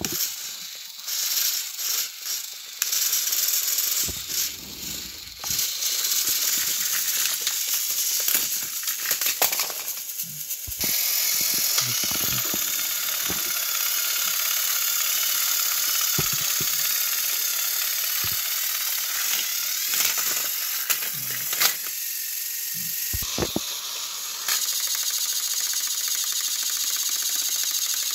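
Battery-powered Thomas & Friends toy train engines coupled head to head on plastic track, their small electric motors and gears whirring as they strain against each other, with scattered clicks and rattles of the plastic trains and track.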